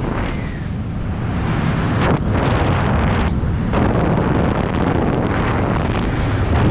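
Wind rushing over the camera microphone while flying under an open parachute canopy. It is a steady, loud rush whose hiss thins out briefly twice.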